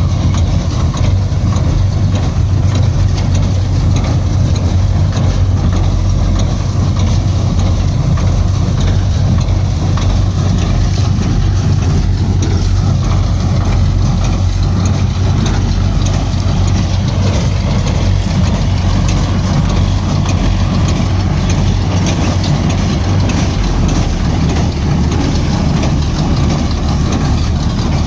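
Machinery running steadily, a loud even mechanical noise over a deep hum.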